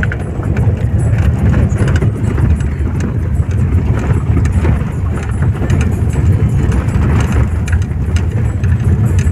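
Car driving over a rough, wet gravel road, heard from inside the cabin: a loud, steady low rumble of tyres and engine with scattered clicks and knocks of gravel under the wheels.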